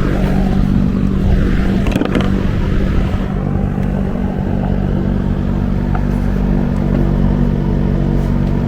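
Steady motor hum, loud and unchanging, with a brief clatter of clicks about two seconds in.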